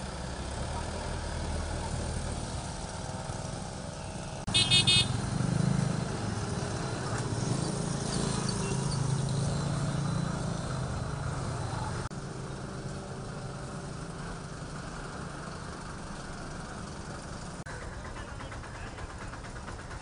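Road traffic with lorry and motorcycle engines running steadily. A horn sounds several short, high blasts about four and a half seconds in.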